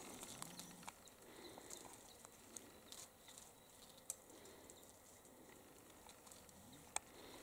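Near silence: faint outdoor bush ambience with a few soft, scattered clicks, the sharpest near the end.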